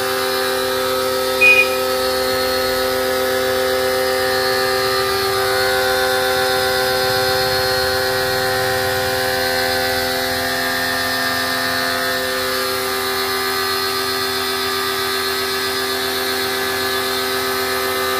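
Electric high-pressure washer running steadily, its pump motor giving a constant hum while the jet hisses against a car's body panels. A short, sharp sound cuts in once, about a second and a half in.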